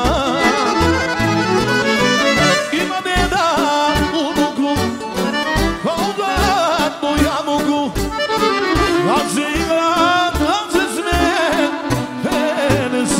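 Balkan folk music played live: an accordion-led instrumental passage with wavering, gliding violin lines over a steady pulse of deep bass notes.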